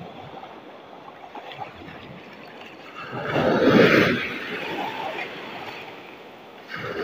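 Sea surf in rough, wind-driven waves: a steady wash of water, then a wave breaks and rushes in about three seconds in, the loudest moment, and dies away; another wave starts to break near the end.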